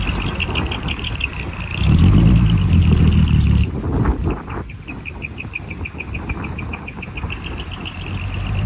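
Diesel engine of heavy earthmoving equipment running; it rises under load from about two seconds in, then eases back about a second and a half later. Over it runs a rapid, even, high-pitched ticking pulse.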